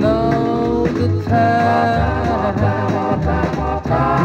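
1958 doo-wop record playing: a male vocal group singing long held harmonies over a slow backing band.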